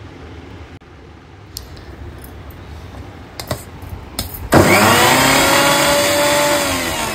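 A few light knocks, then an electric mixer grinder's motor switches on about four and a half seconds in, speeding up quickly to a steady whine as it grinds chopped ginger with a little water. Near the end its pitch drops as it slows down.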